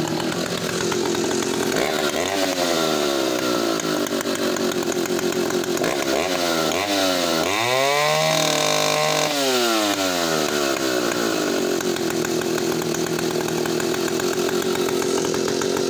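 Vintage West German Solo 60135 92cc two-stroke chainsaw running at idle, with a couple of short throttle blips. About halfway through it is revved up to high speed and held there for about two seconds, then drops back to a steady idle.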